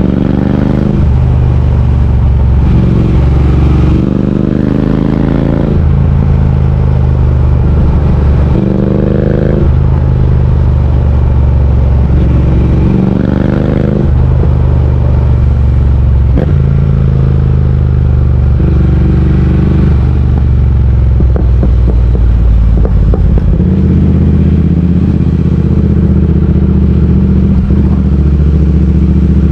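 Triumph Speed Twin 1200's parallel-twin engine under way, rising in pitch and dropping back several times as the rider accelerates and changes gear, then holding a steady pitch near the end. There is a patch of light clatter in the latter half.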